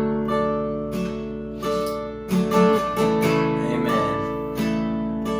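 Acoustic guitar strumming sustained chords, each strum ringing out before the next, about one strum a second.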